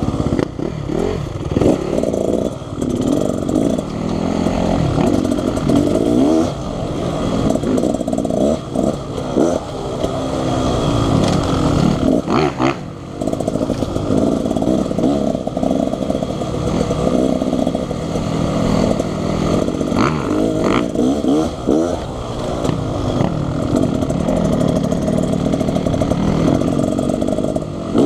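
Two-stroke Beta Xtrainer 300 dirt bike engine running under load on a trail, revs rising and falling as the throttle is worked, with a few sharp knocks along the way.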